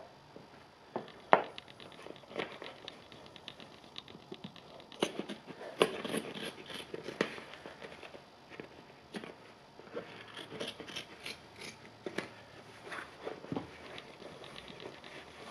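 Scissors snipping and cutting through the upper of an Adidas Honey high-top sneaker, in irregular runs of quick snips with rustling and scraping as the shoe is handled.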